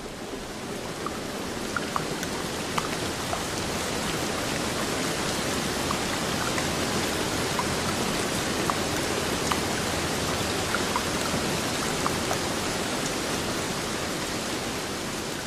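Rain falling on a car's windshield and roof, heard from inside the car: a steady hiss with many small drop taps scattered through it, swelling in over the first few seconds.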